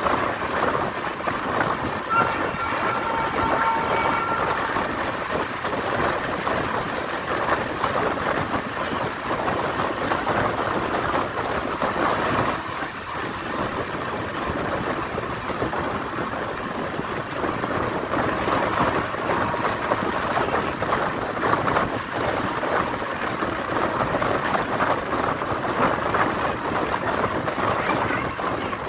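Express passenger train coach running at speed on the rails, heard from the open doorway: a steady rush of wheel-on-track noise and passing air. A faint thin high tone comes in briefly about two seconds in.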